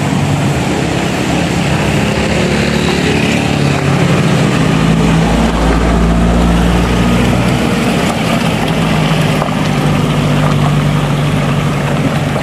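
A vehicle engine running at a steady pace, its pitch shifting a little, under wind noise on the microphone. A deep rumble comes in about four to five seconds in.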